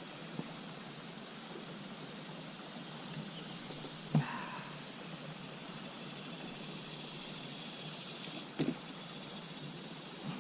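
Steady hiss of flowing creek water, with two brief knocks about four and eight and a half seconds in.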